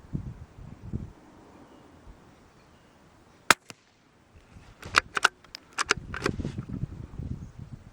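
A single sharp shot from a CZ 452 bolt-action .22 LR rifle firing Norma Subsonic-22 ammunition, about three and a half seconds in, followed a second or so later by a quick run of sharp metallic clicks as the bolt is worked, with low handling thuds around it.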